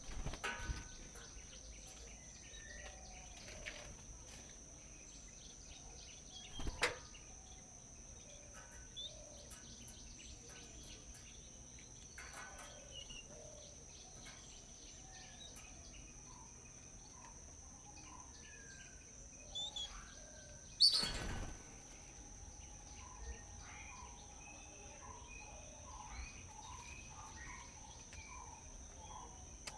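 Wild birds chirping in short, scattered calls over a steady high insect drone. A few sharp knocks or rustles cut through, the loudest about two-thirds of the way in.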